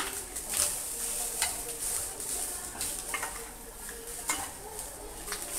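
Wooden spatula stirring and breaking up clumps of freshly added rice in a frying pan of fried rice, scraping and tapping against the pan at irregular moments over a steady sizzle of frying.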